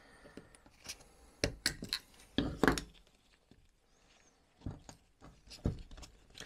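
Irregular light clicks and knocks of metal parts being handled as a Stromberg 175CD carburettor is taken apart by hand, with a few louder knocks midway.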